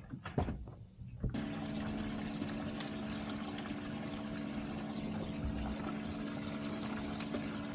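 Boat livewell pump switched on about a second in, running steadily with a hum and water pouring into the livewell. A few light knocks come just before it starts.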